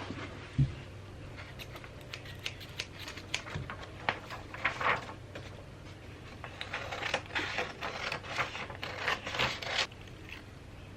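Hands handling small objects and packaging: light taps, clicks and scraping rustles. There is a soft thump just after the start and a denser stretch of rustling and scraping past the middle that stops shortly before the end.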